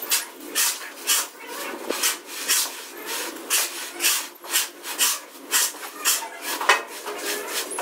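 A plastering trowel scraping over a wet cement floor screed in short, even strokes, about two a second.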